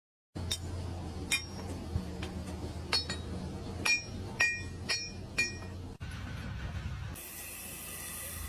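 A series of about eight sharp clinks, each with a short ringing tone, at an uneven pace, like metal or glass being struck; near the end it cuts to a steady hiss.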